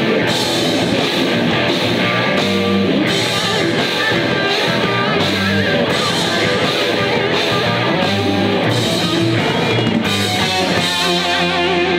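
Live punk rock band playing loud: drum kit, electric bass and distorted electric guitar through amps, with a singer's voice. Near the end the drum hits stop and long guitar notes ring on.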